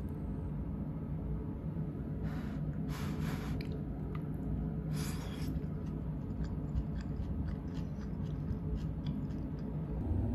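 A metal spoon stirring and scraping fried rice around a nonstick frying pan, with a few short scraping strokes a couple of seconds in and again around five seconds. Light ticks and pops follow, over a steady low hum.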